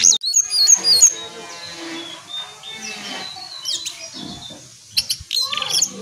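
A caged jongkangan (brown cingcoang) songbird singing. It gives quick, high whistled notes that jump up and down in pitch, then a fast chattering trill, and another burst of sharp notes near the end.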